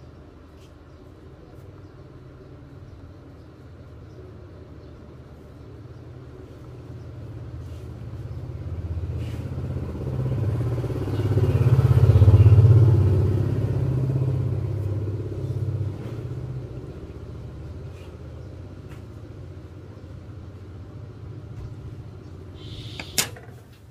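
A motor vehicle passing by: a low engine rumble swells over several seconds, peaks about halfway through and fades away. A single sharp click near the end.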